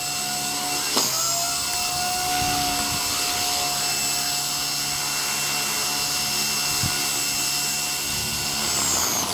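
Blade 130X micro RC helicopter's electric motors and rotor blades whining steadily. About a second in there is a click and the pitch steps up slightly, and near the end the higher tones glide down.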